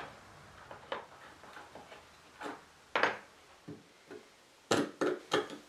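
Scattered clicks and knocks of a screwdriver and loose steel screws against the wooden back of an antique table as its old screws are taken out, with a short scrape about three seconds in and four quick sharp clicks near the end.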